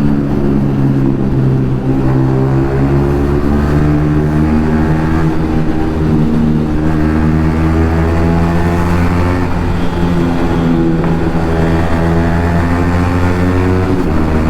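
Yamaha MT-15's 155 cc single-cylinder engine running through an Akrapovic aftermarket exhaust while riding, most likely inside a road tunnel. Its note sags and then climbs again as the rider rolls the throttle.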